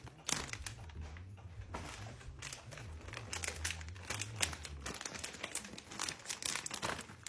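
Plastic snack wrappers crinkling and rustling in quick irregular crackles as packs of cookies are handled and set in place, with a low rumble for the first five seconds or so.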